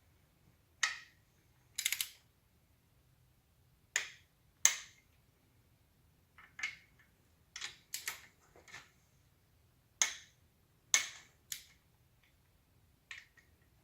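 Click-type torque wrench snapping as it reaches its set torque on the Nissan RB25DET's bottom-end bolts, during a staged tightening of the bottom end. About a dozen sharp clicks come at uneven intervals, some in quick pairs.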